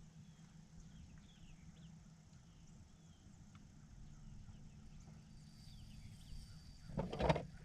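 Faint birds chirping over a steady low hum, then a brief loud knock or clatter about seven seconds in.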